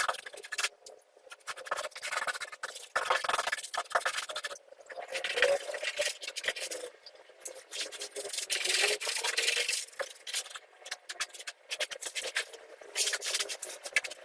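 A hand tool scraping and rubbing across a hard surface in repeated, irregular strokes with short pauses between them.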